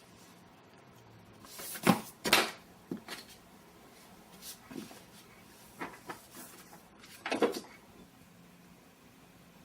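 A string of sharp knocks and clacks, as of a cupboard or small door being handled and banged shut. The loudest come as a pair about two seconds in and once more about seven and a half seconds in, with lighter taps between.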